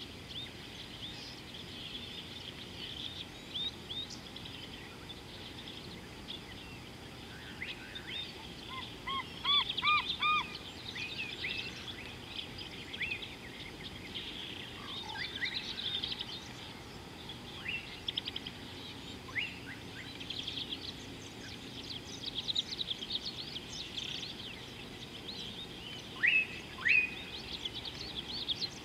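Several wild birds chirping and calling over steady background noise. About ten seconds in comes a run of four clear whistled notes, and near the end two loud calls that drop in pitch.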